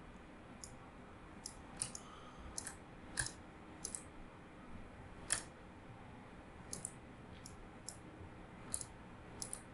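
Faint, sharp computer mouse clicks, about sixteen scattered at irregular times and some in quick pairs, over a low room hiss.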